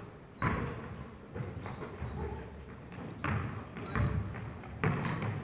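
A basketball bouncing on a hardwood gym floor: a handful of irregular thuds, each echoing around the hall.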